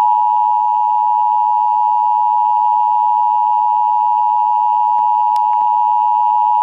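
Emergency Alert System attention signal relayed over FM radio: the steady two-tone alarm, 853 and 960 Hz sounded together, that opens an Amber Alert broadcast. A few faint clicks come about five seconds in.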